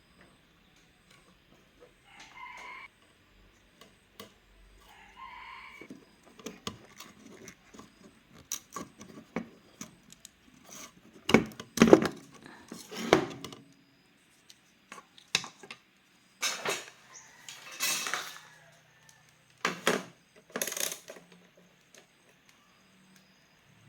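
Hard objects clattering and clinking as they are handled: a run of irregular clicks and knocks, loudest and busiest about halfway through.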